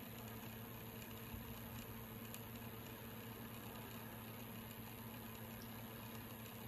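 Motorized display turntable turning, a steady, quiet low electric hum with a light hiss.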